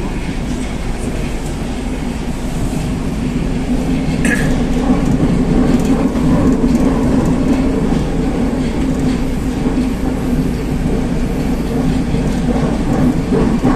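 Running noise of a Moscow metro 81-760A "Oka" car heard from inside while it travels through a tunnel: a steady rumble of wheels on rails that grows louder about four seconds in. A brief high squeak comes at about the same moment.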